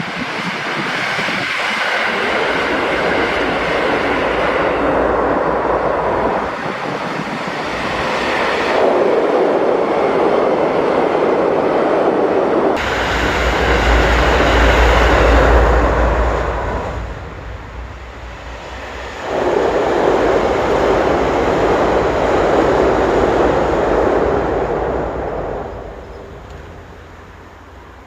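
Diesel train passing close by: wheels on the rails and engine rumble swelling and easing in three waves as the cars go past, the engine loudest about halfway through, then fading away near the end.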